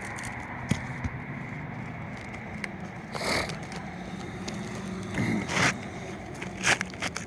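Scraping and crunching on old asphalt roof shingles, with a few sharp clicks and two longer scrapes, about three and five seconds in; the shingles are brittle and break as they are worked. A steady low hum runs underneath.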